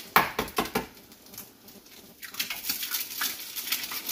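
Eggs frying in hot canola oil in a nonstick pan: crackling and spattering, with a few sharp clicks in the first second and a denser, louder sizzle from about two seconds in.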